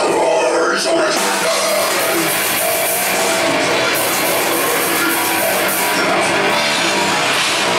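Heavy metal band playing live, loud and steady: drum kit and distorted electric guitars, heard from beside the drums.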